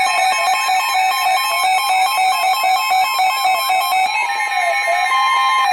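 Synthesized electronic tones: short chime-like notes repeating in a steady pattern with a fast warble over them, changing about four seconds in to a slower, wavering tone.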